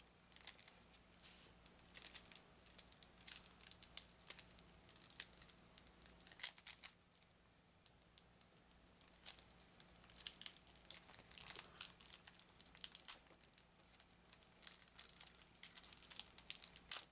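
Plastic wrapping on a pack of game cards crinkling and tearing as it is worked open by hand, in quick irregular crackles with a short lull about seven seconds in.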